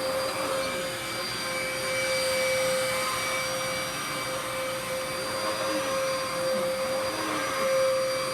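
Dirt Devil PowerMax Pet upright vacuum cleaner running: a steady motor whine over a rush of air, its level swelling and dipping slightly.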